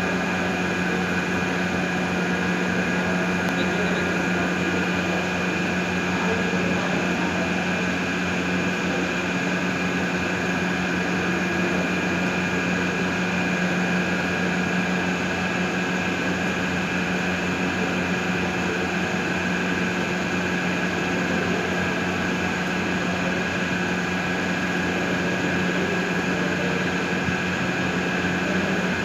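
A steady mechanical hum: a low drone with two higher whines over it, unchanging, with no knocks or taps.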